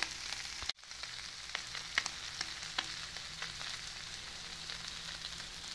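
Chopped carne al pastor sizzling on a hot griddle: a steady frying hiss with scattered crackling pops, broken by a momentary dropout under a second in.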